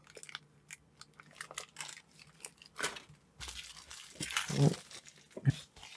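Plastic packaging bags crinkling and rustling as they are handled, with scattered light clicks and taps.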